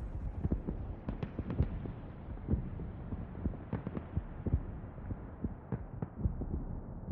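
Muffled, irregular low thumps and knocks, heartbeat-like, with the treble slowly dulling as if a filter were closing over it: a filtered transition between songs in a pop music mix.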